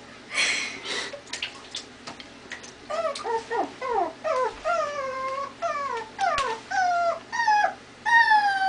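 Shih Tzu puppy whining: after a few brief noisy sounds, a long run of high whimpers starts about three seconds in, each one falling in pitch, one after another.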